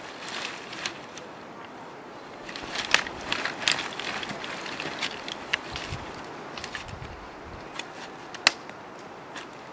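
Dry firewood sticks knocking and clacking together as a rope-tied bundle of sticks is handled, over a rustle of dry grass and leaves. A run of clacks comes about three seconds in, and a single sharp knock comes near the end.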